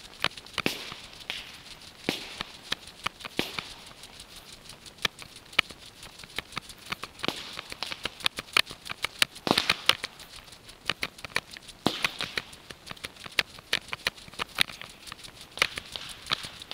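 A person walking through dry field grass, an irregular run of crunching steps with the swish of grass between them.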